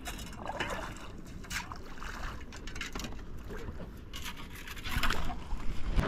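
Shallow lake water splashing and sloshing as a shovel is dipped and worked in it, with short irregular strokes and a louder patch near the end.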